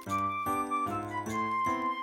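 Background music: a light melody of short instrumental notes changing every few tenths of a second.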